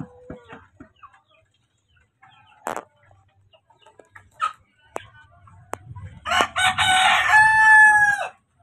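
A native chicken rooster crows once: a loud call of about two seconds starting some six seconds in and ending in a long held note. Before it come scattered soft clucks and a few sharp taps.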